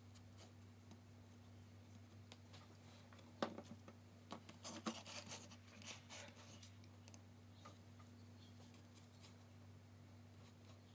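Faint pencil scratching on paper during sketching, with a sharp tap about three and a half seconds in and a louder patch of scratching and rustling over the next few seconds. A steady low hum sits underneath.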